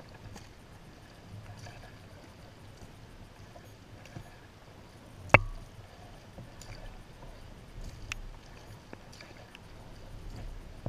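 Kayak paddling: a double-bladed paddle dips and pulls through the water in steady strokes, with small splashes and drips. A single sharp knock sounds about halfway through, the loudest thing heard.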